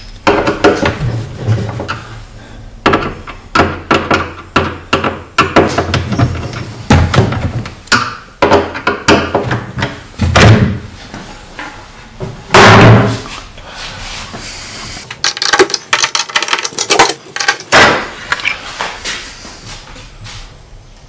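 Wooden cabinet doors being taken off their concealed European cup hinges: an irregular run of sharp clicks, knocks and bumps of metal hinge parts and wood, with a louder knock about a third of the way in and another about halfway.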